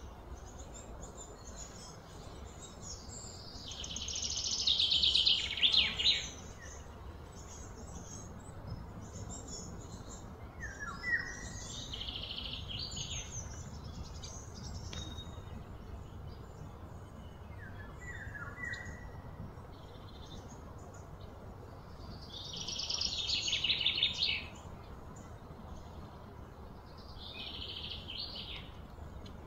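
Birds calling: short chirps that drop in pitch, and several louder rapid trills of two or three seconds each, the loudest about four to six seconds in and again about twenty-three seconds in.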